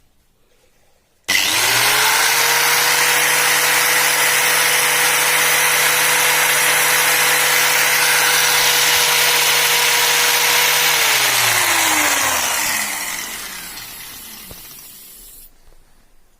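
An electric motor is switched on and spins up almost at once to a steady whine with a loud rushing noise. It runs evenly for about ten seconds, then is switched off, and its pitch falls as it winds down over a few seconds to a stop.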